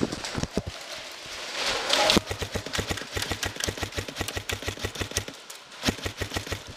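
Airsoft electric rifle (AEG) firing full-auto: a rapid, even rattle of gearbox and piston clicks starting about two seconds in and lasting about three seconds, then a brief pause and another burst near the end. Before the first burst there is a short rustling swell.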